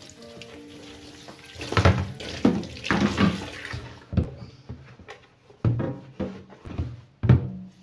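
Tap water running into a kitchen sink while a plastic storage tub is rinsed, with hollow knocks as the tub is handled against the sink. The water stops about four seconds in, and the tub knocks a few more times as it is turned over to drain.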